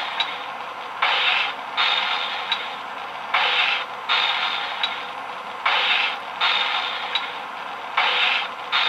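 Sound system of an O-gauge model NYC Hudson steam locomotive playing a rhythmic hiss pattern through its small speaker: pairs of hissing bursts about every two and a half seconds, with a sharp click between each pair.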